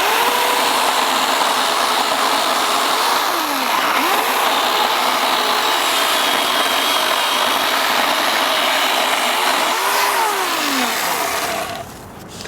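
Chainsaw running at high speed through a cut, its pitch dipping and recovering several times as it bogs in the wood, then dropping away near the end.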